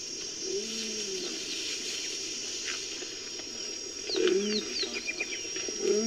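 Cheetah vocal sound effect: two short pitched calls, each under a second and arching up then down in pitch, about half a second in and about four seconds in. Faint high chirps and ticks sound around the second call, and a longer call starts at the very end.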